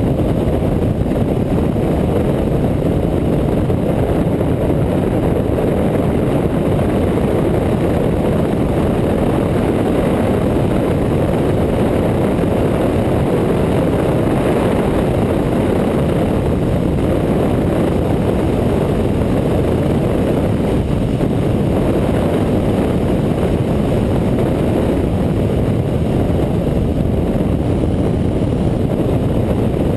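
Steady wind rush over the microphone of a motorcycle cruising at road speed, with the bike's engine running underneath.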